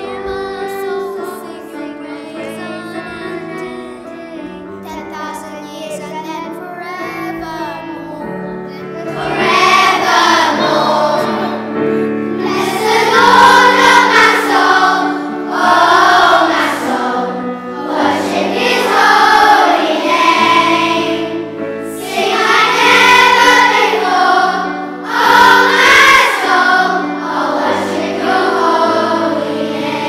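Children's choir singing a song over an instrumental accompaniment. The singing is softer for the first several seconds and becomes much louder and fuller about nine seconds in.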